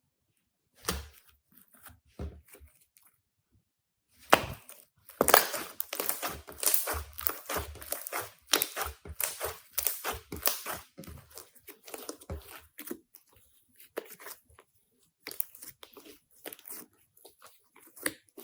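Crunchy slime being squeezed and poked by hand, crackling and popping in irregular bursts: a few crackles at first, a dense run from about four to eleven seconds in, then scattered pops again.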